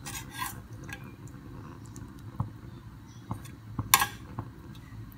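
A few separate light clicks and taps of kitchenware over a low steady hum, with a short rustle at the start; the loudest click comes about four seconds in.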